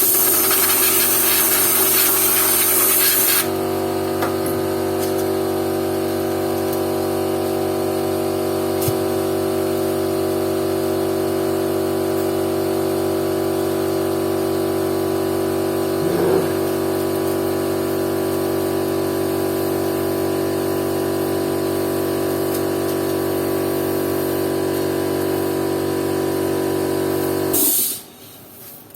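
Compressed-air blow gun hissing for the first few seconds over an air compressor running steadily with a constant hum. The compressor cuts off abruptly near the end.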